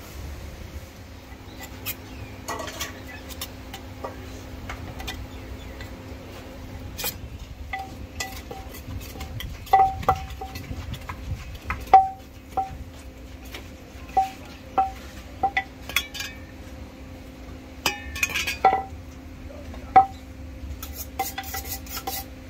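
Metal cooking utensils clanking against a pan in irregular, ringing strikes, the loudest about ten, twelve and twenty seconds in, over a steady low rumble.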